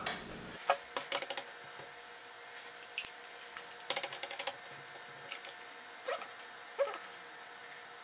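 Scattered light clicks and taps of hard plastic and a multi-bit screwdriver being handled on an upturned Roomba, as the screwdriver is tried on the side-brush screw.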